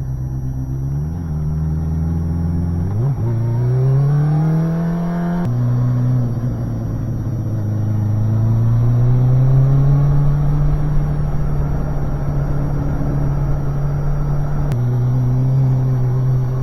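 Suzuki GSX250S Katana's 250 cc inline-four engine under way, climbing in pitch as the bike accelerates. About five and a half seconds in the pitch drops sharply at an upshift, then climbs again and holds steady, with another gear change near the end.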